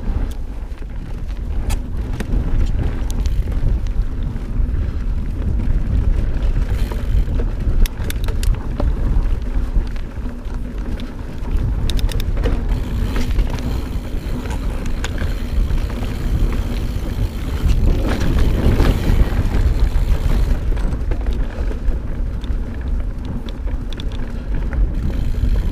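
Mountain bike rolling down a dirt trail: steady wind rumble on the microphone, with the tyres on dirt and scattered sharp rattles and clicks from the bike over bumps.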